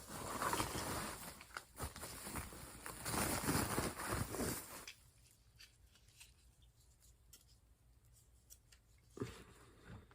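Packaging being rustled and torn open while a ring light is unboxed, a dense crinkling that lasts about five seconds. It is followed by a few faint clicks and a single knock near the end.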